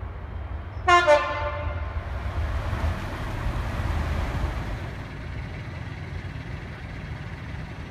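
Class 141 Pacer railbus horn giving a short two-note blast about a second in, slightly falling in pitch, then the steady low rumble of the diesel railbus running.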